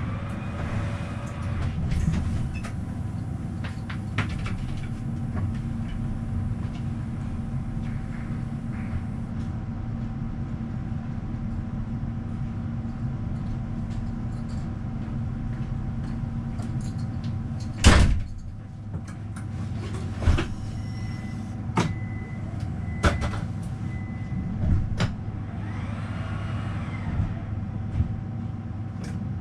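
Standing Stadtbahn tram-train humming steadily as its onboard equipment runs at the platform, with a loud knock about two-thirds of the way through, followed by a few smaller clicks and knocks and a short run of high beeps.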